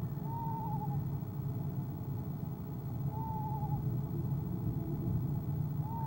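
Eastern screech owl giving short, quavering, slightly falling calls, three times about three seconds apart, over a steady low hum.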